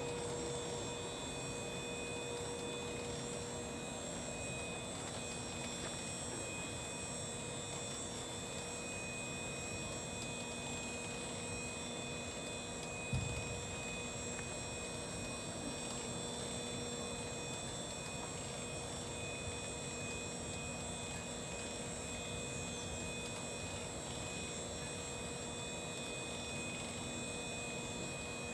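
Steady electric hum of a canal bridge's drive machinery running as the bridge is opened, holding several fixed tones. A single short thump about 13 seconds in.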